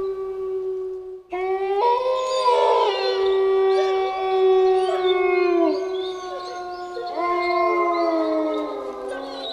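Wolves howling in chorus: a single long held howl, then from just over a second in several howls at different pitches overlapping, some sliding down in pitch as they end.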